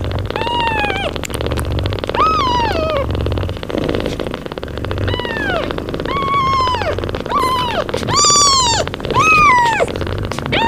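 Newborn kittens mewing: about eight short, high cries, each rising then falling in pitch, over the mother cat's low steady purring.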